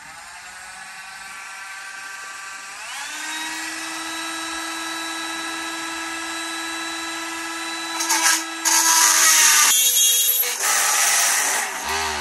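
Hand-held rotary tool (moto tool) with a drill bit whining at speed, its pitch rising about three seconds in. About eight seconds in it turns much louder and harsher as the bit cuts into the rivet of a plastic train-car truck, melting the plastic around it.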